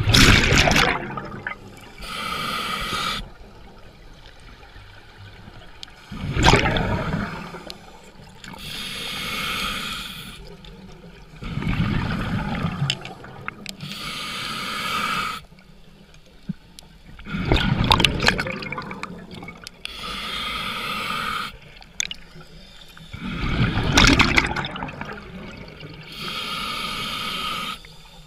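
Scuba diver breathing through a demand regulator, five breaths about six seconds apart. Each exhale is a loud rush of bubbles lasting about a second, and each inhale is a quieter hiss through the regulator with a thin whistling tone.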